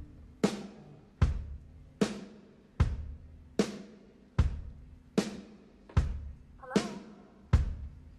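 Drum kit playing a slow, steady solo beat, bass drum and snare alternating, one stroke about every 0.8 s, each ringing out briefly.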